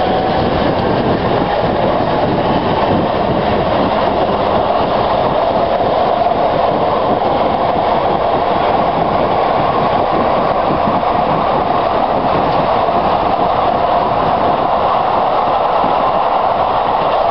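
Manchester 2000-series tram running at speed, its early-generation inverter-driven AC traction motors whining, with the pitch climbing slowly in the first second or so and then holding steady under the wheel-on-rail running noise.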